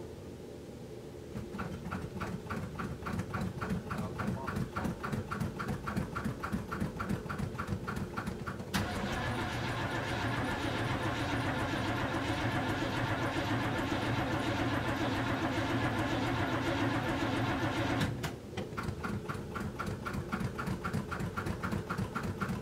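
1978 GMC Suburban's carbureted engine being cold-started in freezing weather without the choke: the starter cranks it in a fast, even rhythm for about seven seconds before it catches and runs steadily. About ten seconds after catching it falters and falls back to the cranking rhythm.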